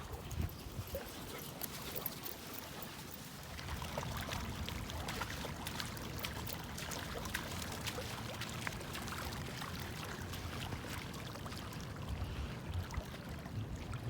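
Shallow lake water splashing and trickling, a steady run of small splashes that gets a little fuller about four seconds in.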